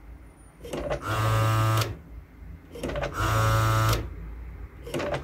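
HP DesignJet plotter's air pump pressurizing the printing system in repeated short cycles. Each cycle is a few light clicks followed by about a second of steady buzzing; there are two full cycles about two seconds apart and a third starting near the end. No sneeze of released air follows any cycle, which is the sign of a leak in the printing system, pointing to a problem in the plotter or the printhead.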